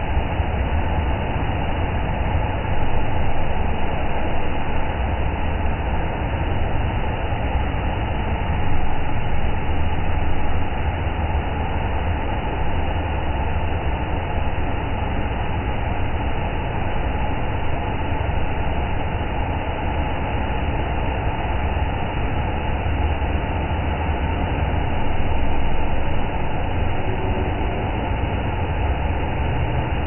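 Hand-held hair dryer running steadily, a continuous rush of blown air with a low motor hum.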